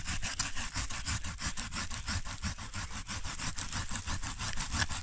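Small hand saw sawing through roots in the soil of a dig hole: quick rhythmic rasping strokes, several a second, with no break.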